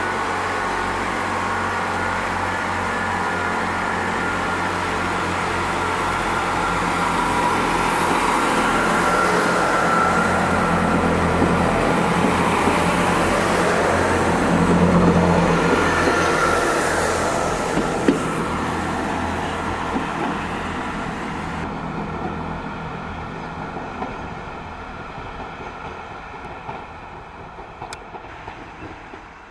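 Class 166 Networker Turbo diesel multiple unit pulling away and passing close by, its underfloor diesel engines running under power, growing louder to a peak about halfway and then fading. After an abrupt change, a quieter, steadier hum from a train further off.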